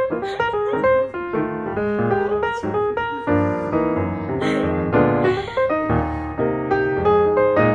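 Background piano music, a lively run of notes played throughout.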